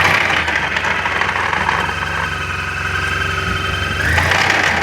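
Suzuki Burgman 650 maxi-scooter's parallel-twin engine and drivetrain running under throttle, rising sharply at the start and again about four seconds in, with a steady high whine over the engine note. The owner traces this bad noise to the final drive; he says the engine sounds fine at idle.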